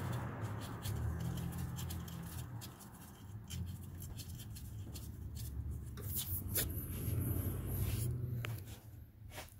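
Light rubbing and scattered small clicks as a gloved hand works a bolt into the oil filter housing on the engine block, over a low steady rumble.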